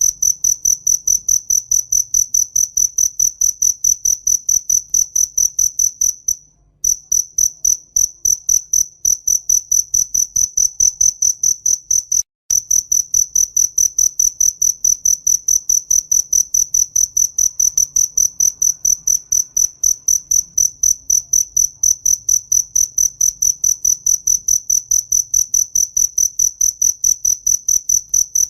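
A cricket chirping: a high-pitched, loud pulse repeating evenly about four times a second, breaking off briefly twice.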